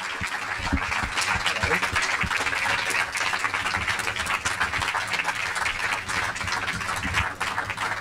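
Studio audience applauding steadily as the guests come onstage.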